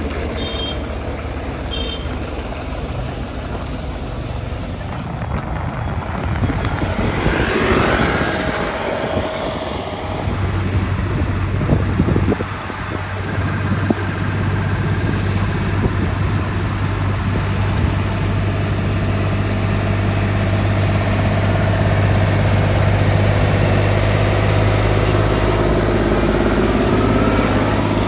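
New Holland 5500 tractor's 55 hp diesel engine running steadily as the tractor drives along a road towing a paddy thresher, with a steady low drone that grows louder as it comes close near the end.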